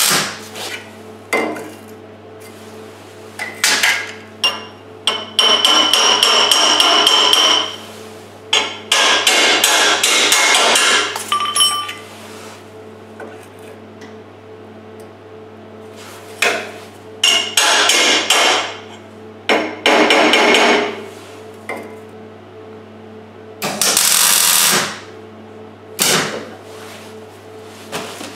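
MIG welding on a steel tube frame: a series of crackling, sizzling bursts, a few short tacks and several longer runs of one to three seconds, with pauses between them and a steady low hum underneath.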